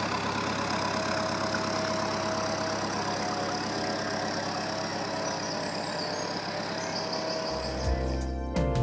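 Narrowboat's diesel engine running steadily at low revs, a low hum with a fast even beat.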